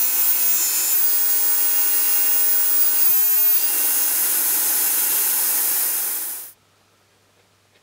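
Sliding-table panel saw running at full speed and cutting a thin wooden strip, a loud, steady whirring hiss that stops abruptly about six and a half seconds in, followed by near silence with a few faint taps.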